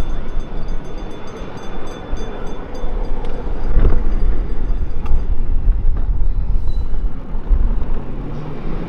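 Ride-on miniature train rolling along its track, heard from on board: a steady rumble of wheels on the rails with a few clicks about four and five seconds in.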